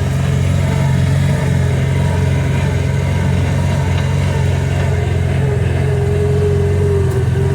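Kawasaki Teryx 800 side-by-side's V-twin engine running steadily, a loud even hum, with a higher steady whine coming in about five seconds in.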